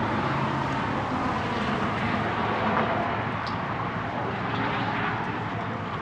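Steady outdoor rushing noise, even and unbroken throughout, with no distinct events standing out.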